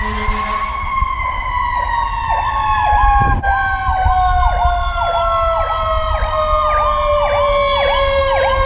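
Fire engine sirens. One siren tone glides slowly downward throughout, while a second siren warbles about twice a second over the low rumble of the truck.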